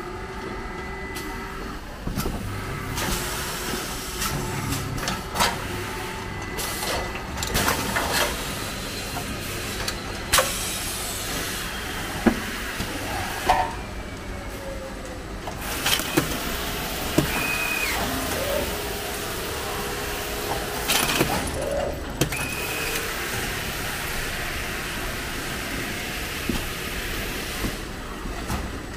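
Carton sealing line and its roller conveyors running steadily as a taped carton rides along the rollers, with scattered sharp clacks and knocks.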